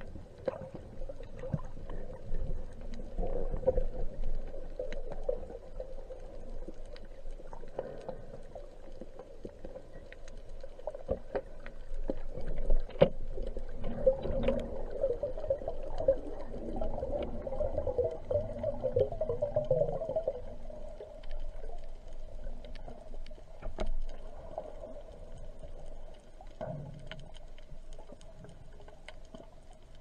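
Underwater ambience picked up by a submerged camera: muffled water movement with a wavering hum and scattered sharp clicks and knocks, busiest in the middle stretch.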